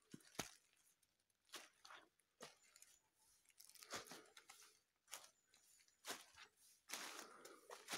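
Footsteps crunching through dry fallen leaves and twigs, an uneven step every half second to a second, with a thicker rustle of leaves near the end.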